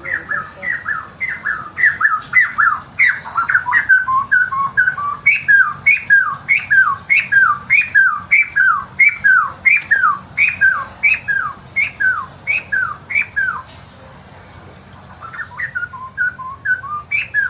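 A bird calling loudly in a long laughing series of sharp falling notes, two to four a second. It stops about fourteen seconds in and starts again shortly after.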